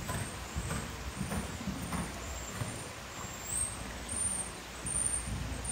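A horse cantering on soft sand arena footing: a muffled hoofbeat thud about every 0.6 s, one per stride, over a low rumble.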